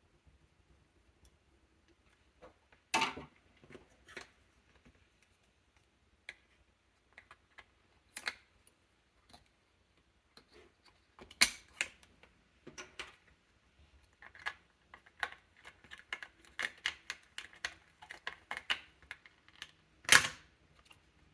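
Sharp plastic and metal clicks and taps of hands working on a laptop, with a few louder single clicks spread through and a quick run of small clicks near the end.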